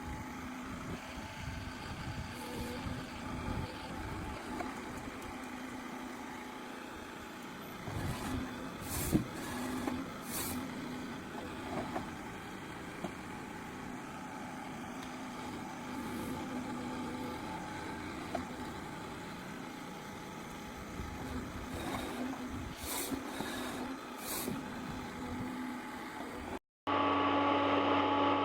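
Forestry harvester's engine running steadily while it works, with occasional sharp cracks and knocks. Near the end the sound cuts to a louder, steadier engine hum.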